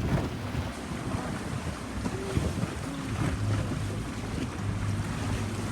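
Boat motor running with a steady low hum that strengthens about halfway through, under wind buffeting the microphone and water washing against the hull.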